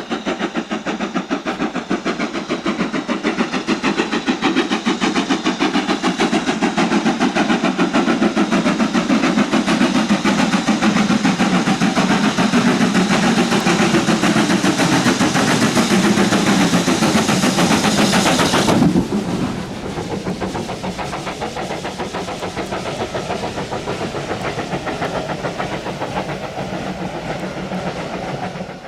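Steam locomotive hauling a train past at speed: a fast, steady beat of exhaust and wheels growing louder, with a tone sliding down in pitch, then dropping sharply about two-thirds through to the quieter clickety-clack of the carriages rolling by.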